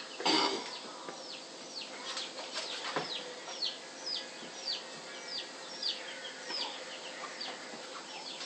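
Bird peeping: a long run of short high peeps, each falling in pitch, about two a second. A short, loud noisy burst comes just after the start.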